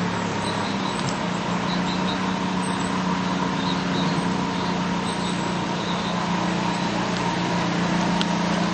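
Steady engine and road noise heard from inside a moving car: a constant low hum with an even rushing noise.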